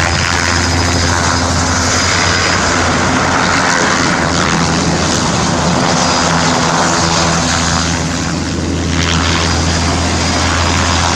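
Bell 206 JetRanger helicopter hovering and turning low, its two-bladed rotors and turboshaft engine running steadily and loudly, with a low hum under broad rotor noise.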